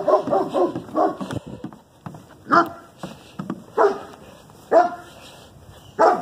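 Dog barking: a string of short single barks, roughly one a second, with a small cluster near the start.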